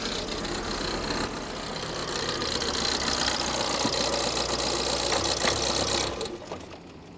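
Van engine idling, just started on a jump from an 18-volt Bosch cordless tool battery wired across its flat battery's terminals; it stops abruptly about six seconds in.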